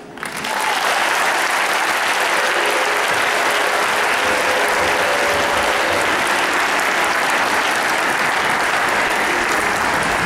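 Audience applause that starts suddenly and holds steady at a high level.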